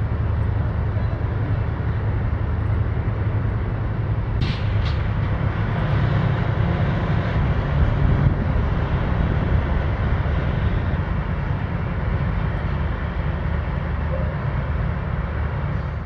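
Steady low rumble of the tug and cargo ship's engines as they pass along the canal, mixed with outdoor noise, with two brief clicks about four and a half seconds in.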